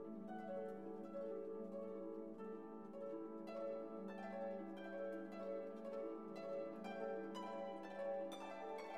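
Instrumental background music with quick plucked-string notes over sustained chords.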